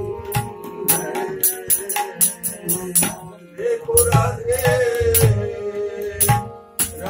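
Kumauni classical Holi song: a man's voice holding long, wavering notes, with drum strokes and a steady patter of sharp percussion clicks about three to four times a second.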